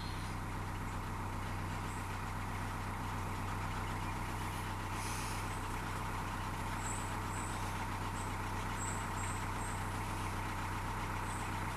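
Narrowboat's diesel engine running steadily under way, an even low drone with no change in speed.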